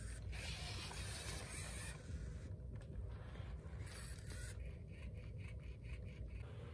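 Sony aibo ERS-1000 robot dog's joint servo motors whirring in spurts as it shifts its legs and sits back, with a quick run of about six ticks near the end.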